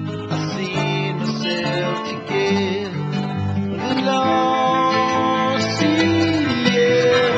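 Background music: a strummed acoustic guitar playing a song, with held melody notes over it.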